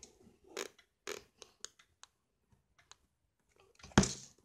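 Handling noise from plastic dolls being moved and set down: a scattering of light clicks and rustles, with one louder thump near the end.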